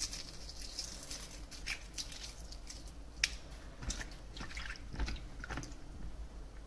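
Hands peeling the cracked shell off a hard-boiled egg still wet from cold water: soft wet crackles and small clicks of shell pieces, with one sharper click about three seconds in. The shell comes away easily.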